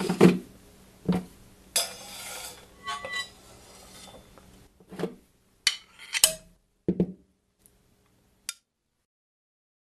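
Drum-kit foley: separate sharp hits with glassy, dish-like clinks standing in for on-screen sound effects, and a short hiss about two seconds in. The hits stop about eight and a half seconds in.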